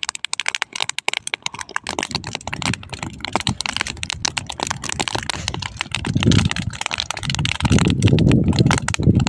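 Dry crop stubble burning, crackling with dense, rapid, irregular pops. From about six seconds in, gusts of wind rumble on the microphone as the wind picks up and fans the fire.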